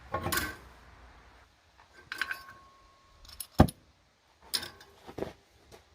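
Oxy-acetylene cutting torch and metal being handled, with short clanks and clinks and one sharp, loud pop a little past halfway. The pop is a torch popping on a mis-set flame, which the welder blames on forgetting how to run the torch.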